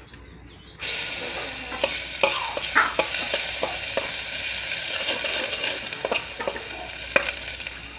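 Crushed black pepper and garlic hitting hot ghee in an aluminium pot: a sizzle starts suddenly about a second in and keeps going. A steel spoon stirs the pot, clicking and scraping against the metal.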